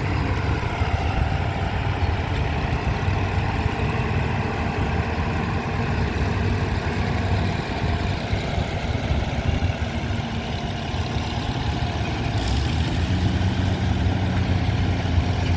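Tractor diesel engine running steadily, its note rising about twelve seconds in as it revs up.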